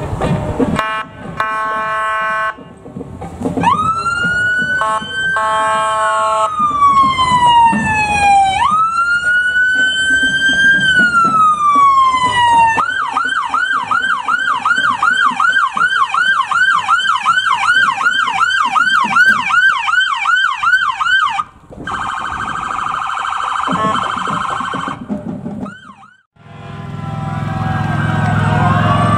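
Police cruisers' electronic sirens: a brief steady tone, then two slow wails that rise and fall, then a fast yelp of about three cycles a second for some eight seconds. Near the end a deeper engine rumble comes in with several rising siren tones as fire apparatus approach.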